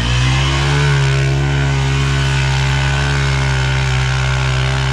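ATV (quad) engine held at steady high revs, one even pitch throughout.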